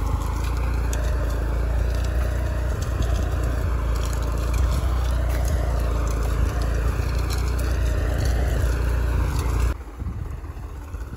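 New Holland 3630 4x4 tractor's diesel engine running steadily under load while pulling a plough through the soil. Near the end the sound drops suddenly to a quieter, more distant engine.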